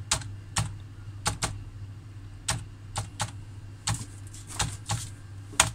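Keys pressed one at a time on a computer keyboard as a password is typed: about a dozen separate clicks at an uneven pace, the last one the loudest, over a steady low hum.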